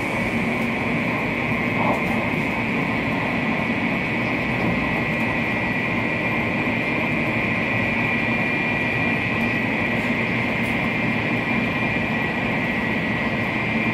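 Steady cabin noise inside a THSR 700T high-speed electric train at speed: a constant rumble and rush with a steady high whine above it.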